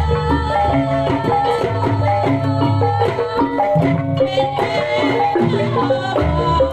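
Gamelan music for kuda lumping: metal-keyed instruments play a busy, stepping melody over hand-drum rhythms, loud and unbroken.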